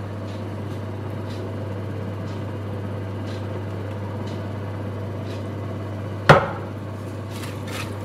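A steady low hum with a few faint taps, and one sharp knock about six seconds in, the loudest sound: a wooden spoon striking the rim of a stainless steel pot of shredded cabbage.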